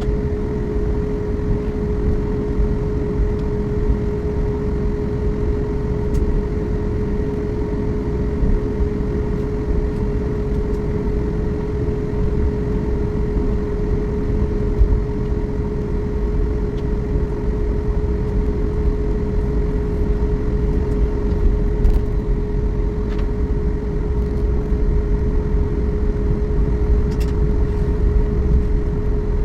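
Cabin noise inside a Boeing 737 MAX on the ground before takeoff: a steady rumble from the idling engines and the air conditioning, with a steady high-pitched hum over it.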